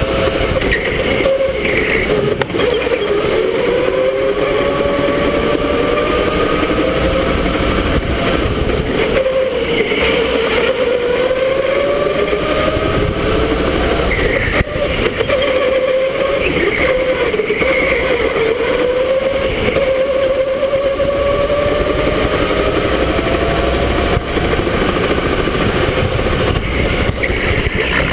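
Electric go-kart motor whining under a steady rush of noise, its pitch climbing over several seconds as the kart accelerates and dropping back, again and again through the laps.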